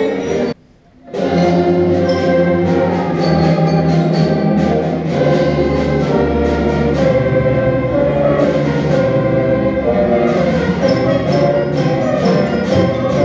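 Orchestral background music with a steady percussive beat, which drops out briefly about half a second in and then resumes.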